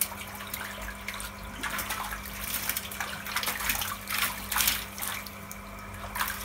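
Irregular splashing in shallow pond water as crowded fish thrash and a person wades barefoot among them, over a steady low hum.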